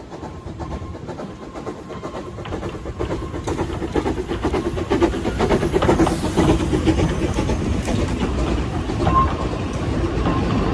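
Narrow-gauge steam locomotive, Corris Railway No. 4, a Kerr Stuart 0-4-2 saddle tank, approaching and running past with its train. The sound grows steadily louder as the engine comes up and is loudest as it passes about halfway through, with rapid clicking from the wheels on the track. The carriages then roll by close.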